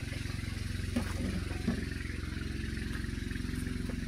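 A vehicle's engine running steadily, with two short knocks or rattles about a second and a second and a half in.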